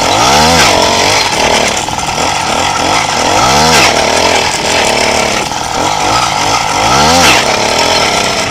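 Small single-cylinder motorbike engine revved hard three times, its pitch climbing and falling each time, about a second in, midway and near the end, as the rider throttles up for a wheelie.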